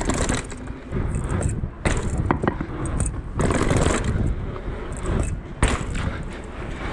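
Rockrider 560 S mountain bike being ridden over rough ground: tyres rolling and scraping, with irregular knocks and rattles from the bike, under wind rumble on the GoPro's microphone.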